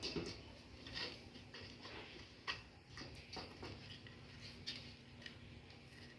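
Faint, irregular light clicks and taps, about a dozen, over a low steady hum.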